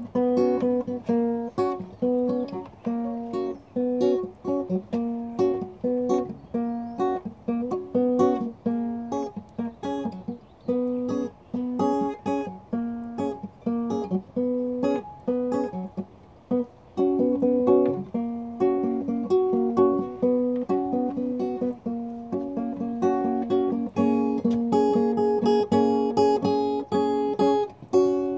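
Acoustic guitar played solo: a steady flow of picked notes and chords, with a brief pause about sixteen seconds in and busier, brighter playing near the end.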